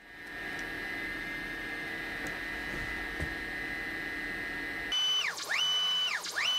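A steady hum with a faint high whine, then from about five seconds in the stepper motors of a ball-screw-driven DIY CNC router whining through short axis moves, the pitch gliding up, holding and falling back two or three times.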